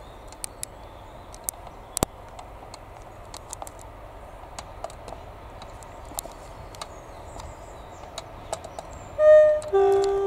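Class 47 diesel locomotive sounding its two-tone horn near the end: a short higher note, then a longer lower one. Before the horn there is only a faint steady background with scattered small clicks.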